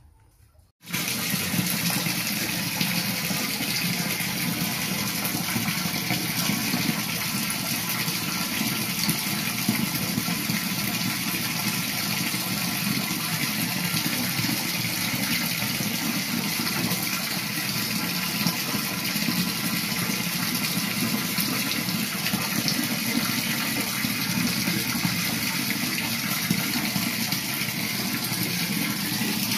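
Water from a tap pouring steadily into a styrofoam box holding a live fish. The water starts about a second in, after a brief silence, then runs on evenly.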